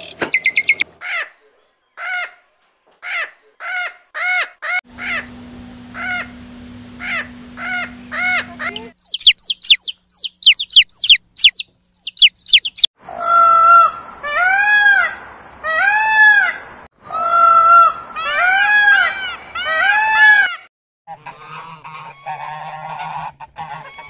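A run of bird calls. First comes a bulbul's short call, repeated, then a burst of high, quick down-slurred chirps about nine seconds in. Loud honking by geese, goose after goose, takes up most of the second half.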